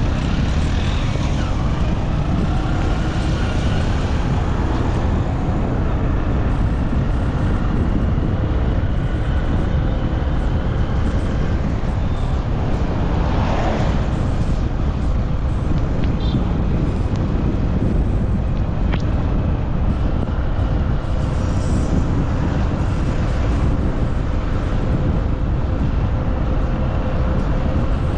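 Steady road traffic noise, vehicle engines running past, with a dense low rumble throughout.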